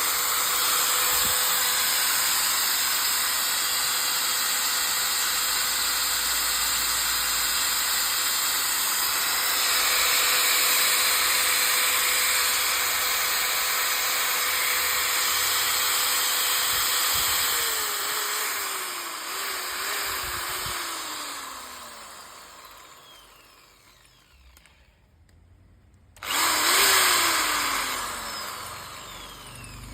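INCO 13 mm 750 W electric drill running at a steady speed for about seventeen seconds, then winding down with its pitch falling unevenly. After a short quiet gap it is switched on again briefly and coasts down.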